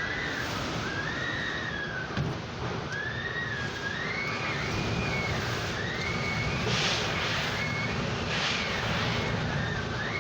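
Hurricane-force wind blowing hard, with a high whistle that rises and falls every second or so as it gusts. Two louder hissing gusts come about two-thirds of the way through.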